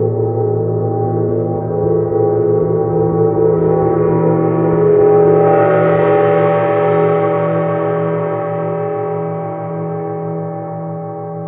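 Large gong ringing on, a deep pulsing hum under many steady overtones; the higher overtones swell into a bright shimmer about five seconds in and then slowly fade.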